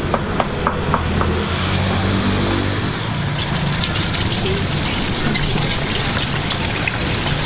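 Street food wok station: a steady sizzling hiss of frying, with a few sharp metal clinks in the first second or so and a low engine hum underneath for the first few seconds.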